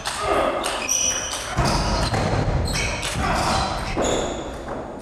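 Table tennis rally: the celluloid ball knocking back and forth off the rubber bats and the table, among short high squeaks.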